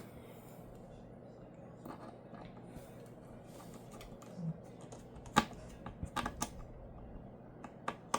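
Scattered small clicks and taps of screws and a precision screwdriver being handled against a MacBook's case. The clicks are sparse at first and come several to the second near the end.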